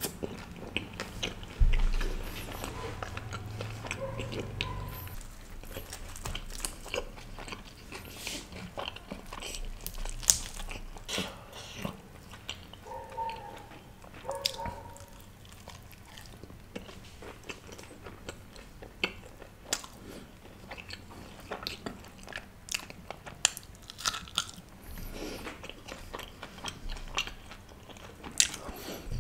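Close-miked eating: biting and chewing mouthfuls of naan with paneer curry, with wet mouth sounds, lip smacks and finger licking, and one low thump about two seconds in.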